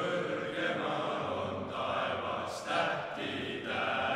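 Male choir of teenage boys singing held notes together, with a few short hissing consonants cutting through.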